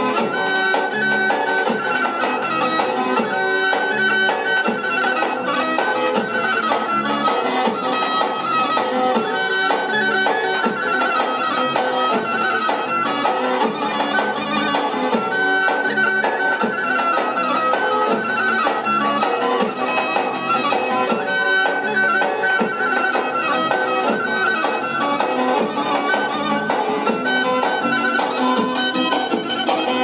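Traditional Albanian folk dance music playing continuously for a line dance, with a wind instrument carrying the melody.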